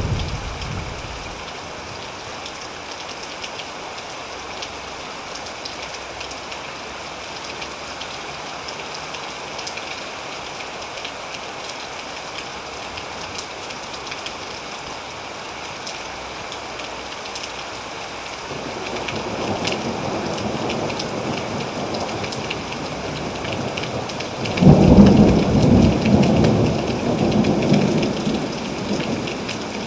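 Steady rain falling, with thunder: the end of a rumble dies away at the start, a low rumble builds about two-thirds of the way in, and a louder thunderclap breaks near the end and rolls on for a few seconds.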